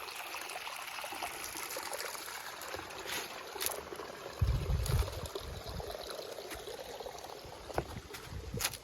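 A small stream trickling and splashing steadily. From about halfway through, loud low rumbling bumps come in, and there are a few sharp clicks.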